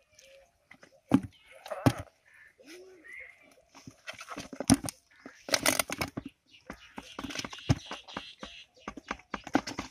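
Live eels shaken out of a tube trap into a plastic bucket: irregular bursts of sharp knocks and wet slaps as they drop in and thrash against the plastic.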